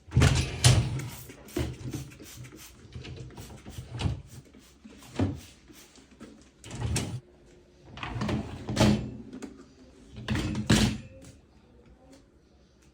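Dishwasher parts being handled during cleaning: uneven bursts of knocks, clatter and scraping, like racks or the door being slid and moved, about half a dozen times.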